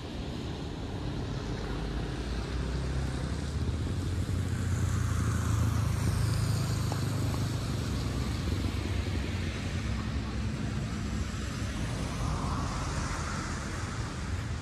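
Toyota Corolla GLI 1.6 driving on a wet road, its engine running and its tyres hissing through the water. It grows louder to a peak about six seconds in, then eases off.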